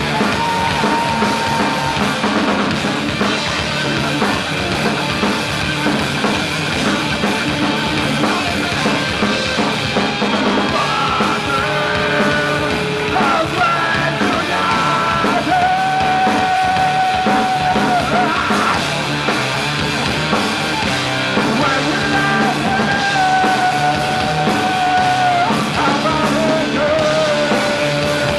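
Punk rock band playing live: drum kit, bass and guitar at full volume, with long held high notes over the band from about eleven seconds in.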